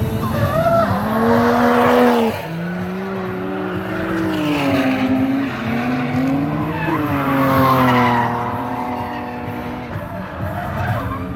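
Drift car engine revving up and down on and off the throttle while its tyres squeal through a slide, the squeal loudest about two seconds in and again near eight seconds.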